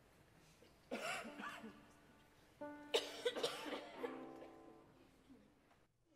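Two bouts of coughing and throat clearing, about a second in and about three seconds in, in a large hall. Between and after them a few steady instrument notes sound, then the sound cuts off abruptly near the end.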